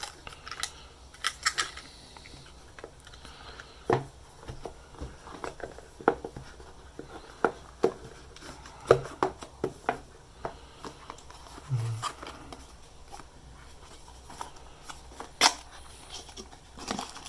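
Unboxing handling: a cardboard box and its packed accessories being opened and taken out, giving scattered sharp clicks, taps and light knocks with a short low thump about twelve seconds in.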